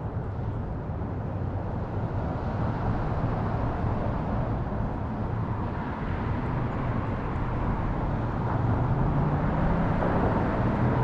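Steady low rumble of road traffic on the bridge overhead, growing louder over the second half as a vehicle comes closer.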